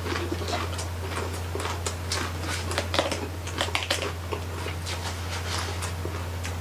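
Close-up chewing of crispy roasted pig (lechon) skin: many quick, irregular crunches and crackles over a steady low hum.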